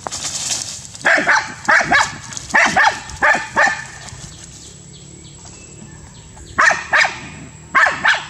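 Small dog barking in quick pairs of short, sharp barks: about eight in a burst over the first few seconds, then a pause, then four more near the end.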